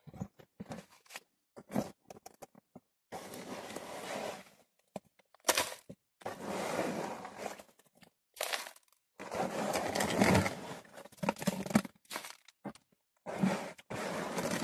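Handfuls of gravelly dirt, classified to half an inch, scooped by hand from a plastic tub and dropped into a plastic turbo gold pan: a series of gritty crunching, rattling pours, each lasting a second or so, with small clicks between.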